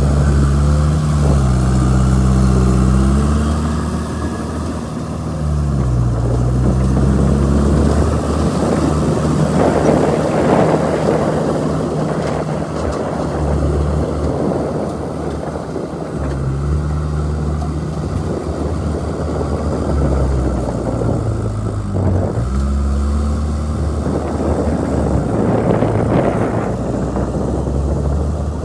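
Diesel engine of heavy earthmoving machinery working, its speed repeatedly rising and falling as it takes and sheds load, with louder rough noise about ten seconds in and again near the end.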